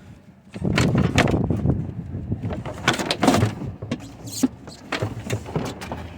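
Irregular clatter and sharp knocks of plastic cargo-floor panels being lifted and moved about in an SUV's rear load area, with a low rumble underneath.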